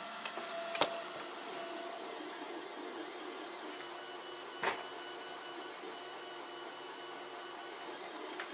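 3D printer running a print through a belt-driven Bowden extruder: stepper motors whining in a few steady tones that shift in pitch over a constant fan hiss, with two sharp clicks, one about a second in and one near the middle.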